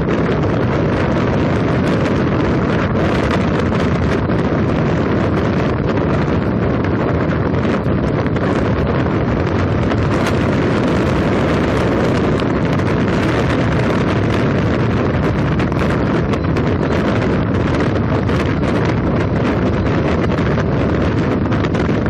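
Wind rushing over the microphone at the open window of a moving vehicle, a loud steady noise with road and engine noise underneath.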